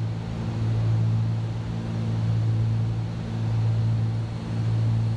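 Steady drone of a Cessna 310's twin piston engines and propellers in cruise-descent on approach, heard in the cockpit with a low hum over hiss. The loudness swells and fades slowly about every second and a half, the beat of two engines turning at slightly different speeds.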